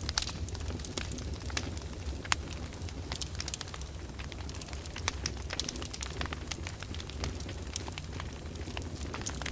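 Wood fire crackling in a fireplace: irregular sharp pops and snaps over a steady low rumble of the flames, with a few louder pops.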